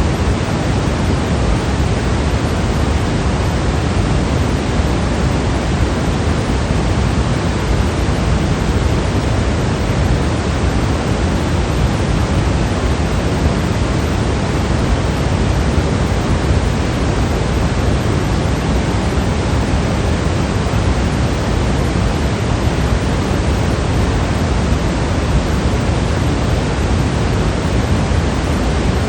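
Steady, unchanging white-noise sleep sound: a constant even hiss with more weight in the low end than the highs, closer to pink noise, with no changes or events.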